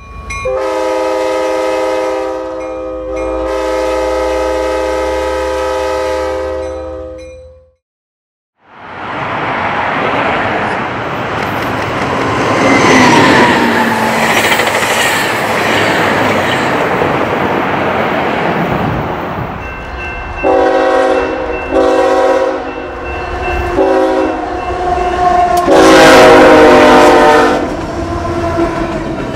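Locomotive horn sounding a multi-note chord in two long blasts, then cut off sharply. Next comes a train rushing past close by with a loud rumble of wheels on rail. A second horn then sounds a run of short blasts ending in a long one as the rail cars roll by.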